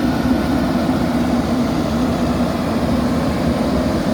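Diesel engine of a JCB backhoe loader running steadily, an even low drone with a held tone and no sudden knocks or pitch changes.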